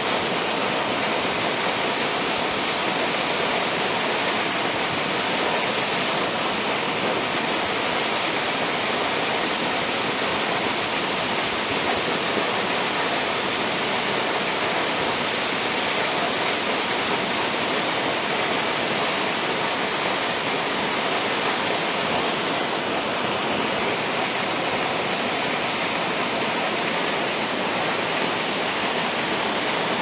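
Waterfall rushing: a steady, unbroken wash of falling water with no pauses or changes.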